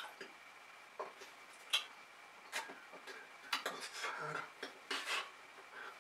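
Irregular soft clicks, taps and brief rustles from a signer's hands striking and brushing together as he signs, several a second at uneven spacing.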